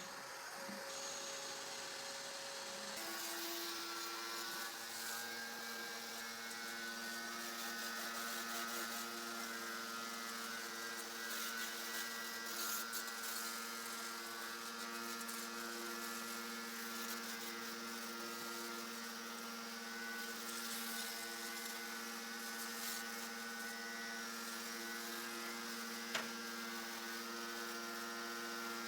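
Steady electric motor hum, a constant pitched drone with several overtones that sets in about three seconds in and holds unchanged.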